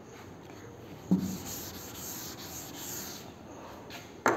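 Chalkboard duster rubbing across a green chalkboard, wiping off a chalk drawing, with a short knock about a second in.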